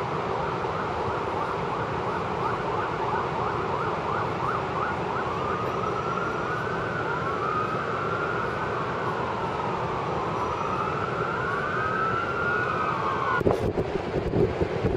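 Emergency-vehicle sirens over a steady hum of city traffic. The sirens start in a fast yelp, then change to slower wails, two of them overlapping and rising and falling. Near the end the sirens stop and wind buffets the microphone.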